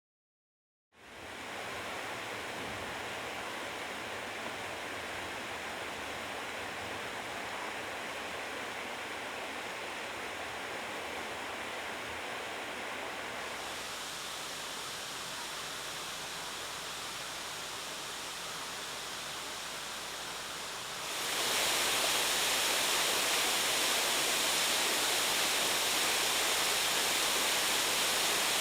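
Steady rushing of a waterfall on the Kido River, fading in about a second in. The sound changes slightly partway through and steps up louder about two-thirds of the way in.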